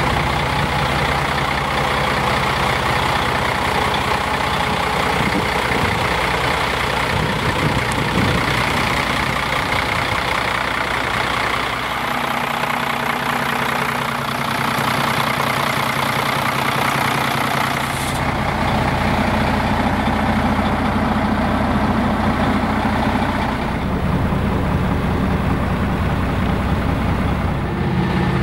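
Freightliner M2 SportChassis hauler's Mercedes-Benz diesel engine idling steadily. The low rumble drops away abruptly about twelve seconds in and comes back about six seconds later.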